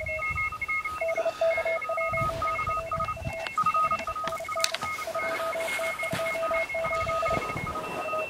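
Several Morse code (CW) signals at different pitches keying at once, heard through a portable shortwave amateur radio transceiver's speaker: stations working an amateur radio contest.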